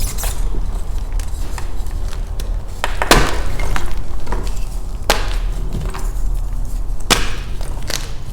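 Block of Beasty gym chalk being crushed in the hands close to the microphone. It gives crunchy, snappy cracks, the loudest about three seconds in and two more at roughly two-second intervals after it, with small crackles in between.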